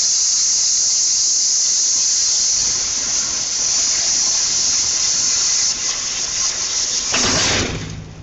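Cashew nut peeling machine running with a loud, steady, high-pitched hiss. Near the end comes a short, fuller rush, and then the hiss cuts off.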